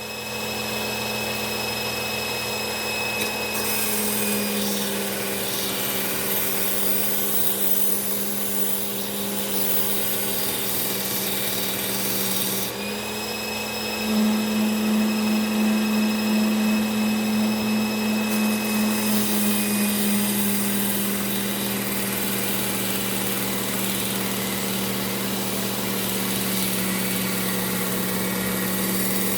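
Bench grinder running steadily with a buffing wheel, a hum with a high whine over it and a rubbing hiss as a knife blade is worked against the wheel. About 13 s in the pitch shifts slightly and the sound grows louder and wavers.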